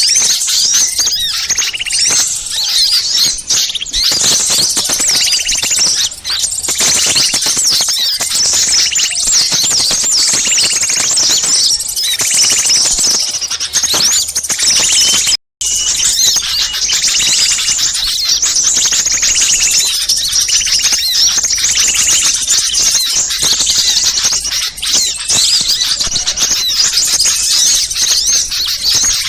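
A loud, dense chorus of many small songbirds chirping and twittering over each other in high, rapid calls, the mixed call recording used to lure wild small birds. It cuts out for a split second about halfway through.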